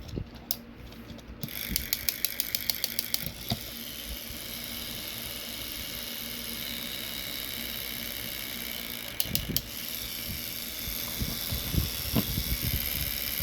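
A small electric motor running steadily with a whirring hiss and a few steady tones, after a run of quick clicks as it starts up about a second and a half in.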